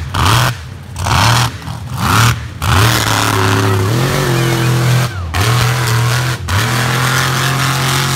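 Mega truck's engine revving in quick blips, then held at high revs as it runs down the mud course, with two brief dips in revs about five and six and a half seconds in.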